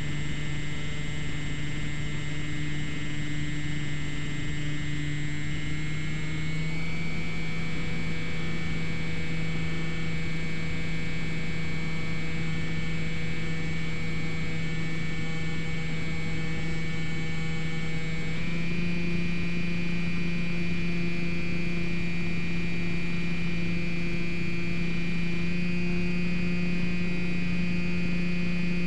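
Electric motor and propeller of a Slowstick RC plane running steadily in flight, picked up by the onboard camera's microphone. The humming tone steps up in pitch twice, about a quarter of the way in and again past halfway, as the throttle is advanced.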